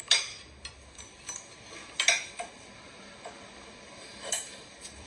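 Cutlery clinking against a dish while eating: three sharp clinks, near the start, about two seconds in and just past four seconds, with a few fainter ticks between them.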